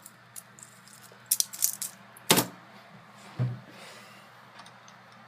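Handling clatter as a closed laptop is flipped over on a desk: a quick run of light clicks and rattles, a sharp knock a little over two seconds in, then a duller thump about a second later.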